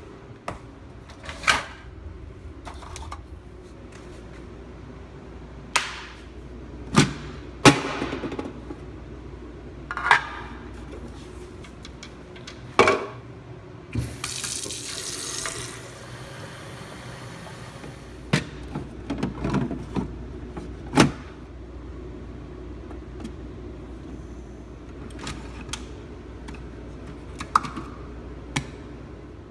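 Kitchen sink faucet turned on, running water for about two seconds, then trailing off. Before and after it, a string of sharp knocks and clicks from things being handled.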